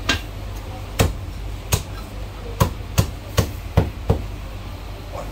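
Cleaver chopping a cooked chicken into pieces on a thick round wooden chopping block: about eight sharp chops, spaced about a second apart at first, then coming quicker.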